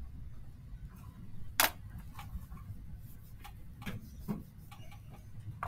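A few light clicks and taps from a pen and paper being handled on a desk, the sharpest about one and a half seconds in and another at the end, over a low steady hum.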